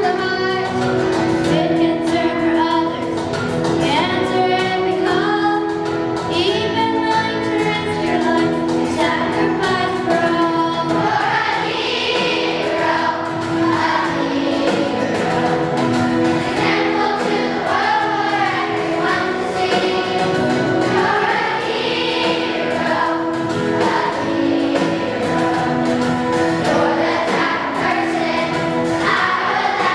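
Elementary school children's choir singing a song.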